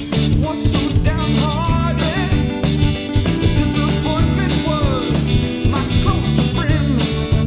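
Rock song with guitar and a singing voice.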